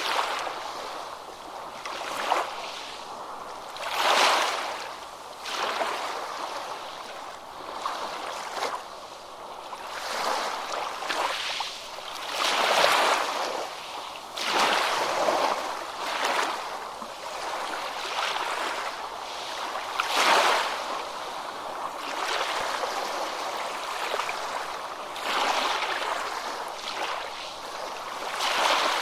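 Ocean waves breaking and washing in, a continuous hiss of surf that swells with each wave every few seconds.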